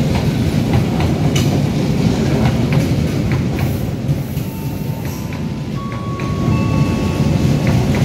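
Long-distance passenger train coaches rolling past the platform: a steady low rumble with scattered clicks of wheels over rail joints. From about halfway through, thin steady high squeals join in.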